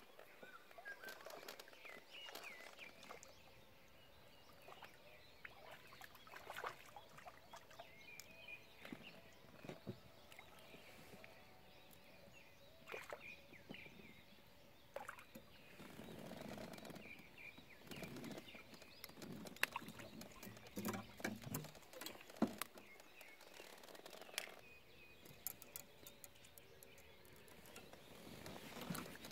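Quiet pondside outdoor ambience with faint bird chirps now and then and scattered small clicks and taps.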